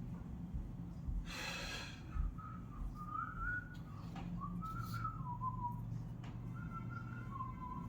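A person whistling a wandering tune in short phrases, with a brief noisy rasp about a second and a half in.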